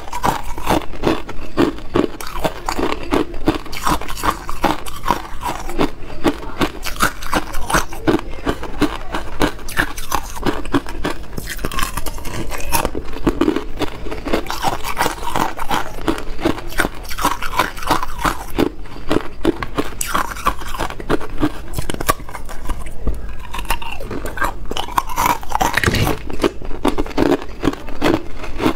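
Hard ice cubes being bitten and chewed, a dense, unbroken run of sharp crunches and cracks as the ice breaks between the teeth.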